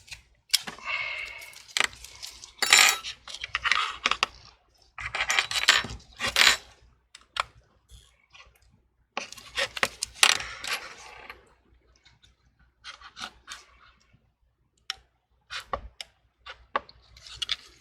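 Small metal repair tools and phone parts clicking, tapping and scraping against each other and the work surface, in irregular clusters with short pauses.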